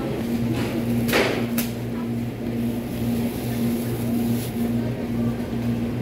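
Supermarket ambience: a steady low hum that pulses about three times a second, with a few short clicks and rattles.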